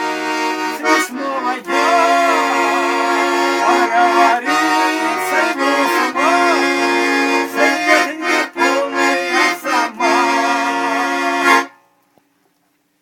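Accordion playing the instrumental close of a Russian folk-style song, with a moving melody over sustained chords. It ends on a held final chord that stops abruptly about a second before the end, leaving near silence.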